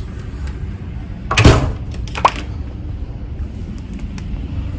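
A door swinging shut with a heavy thud about a second and a half in, followed by a brief high squeak, over a steady low rumble.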